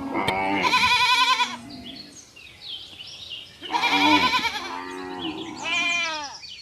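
Farm animal calls: three quavering calls, each about a second long, the last one falling in pitch.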